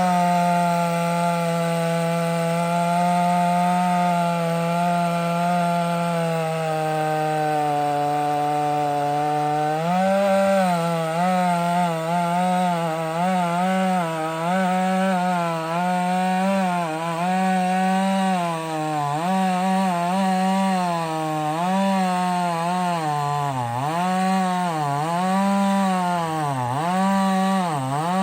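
58cc two-stroke chainsaw (a Chinese-made 5800) running at full throttle while cutting through a red oak log more than 30 inches across. The engine note holds fairly steady for about ten seconds, sagging a little. After that it dips and recovers over and over, more deeply near the end, as the saw is pushed hard into the cut.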